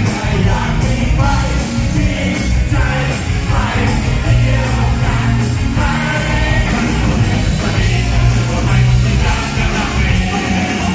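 A live pop-rock band with a male lead singer, the vocal over loud, steady bass and drums, heard from among a standing audience in a hall.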